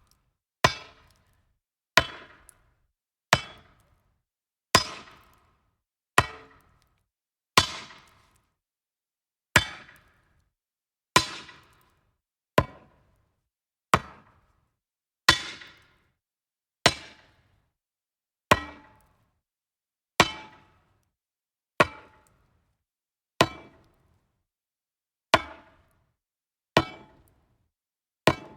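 A metal rod striking wood, one separate hit about every second and a half, each a sharp knock with a short ringing tail.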